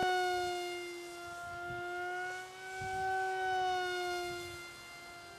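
A small Depron delta-wing model airplane's motor and propeller whining steadily in flight overhead, the pitch drifting slightly and the sound swelling and fading as the plane moves about.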